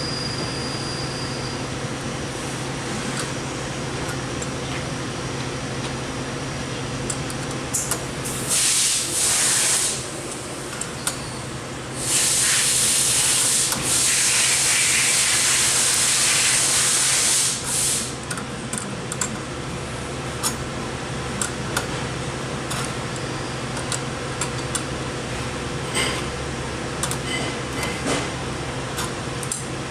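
Two loud hissing bursts, a short one about 8 seconds in and a longer one of about six seconds starting near 12 seconds, over a steady low hum. Light metal clicks come later as an adjustable wrench works the nut on a spring-loaded valve poppet stem.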